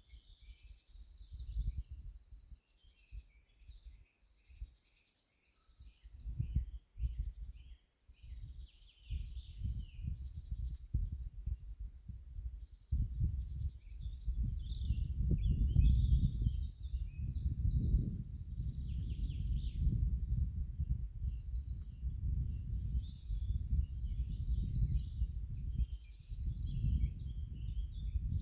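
Small songbirds singing and chirping over a low, uneven rumbling noise that grows much louder about halfway through and is then the loudest sound.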